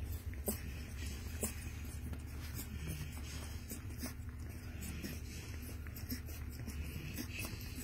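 Newborn puppies suckling at their mother's teats: scattered soft clicks and smacks over a steady low hum.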